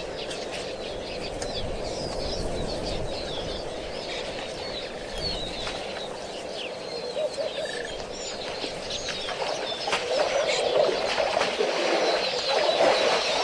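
Many wild birds chirping and twittering in short, quick calls over a steady background hiss, with a louder rushing noise coming up in the last few seconds.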